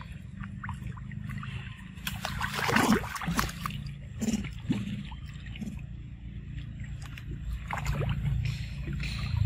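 Water splashing and sloshing as macaques swim and move about in a pool, with a burst of louder splashes about two to three seconds in and a few shorter splashes after it, over a steady low rumble.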